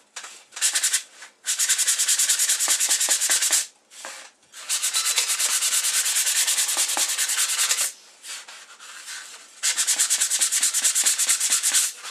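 Mirka P240 sanding sponge rubbed briskly back and forth over a thin wooden puzzle panel, sanding off pencil marks. It comes in four runs of rapid strokes with short pauses between them.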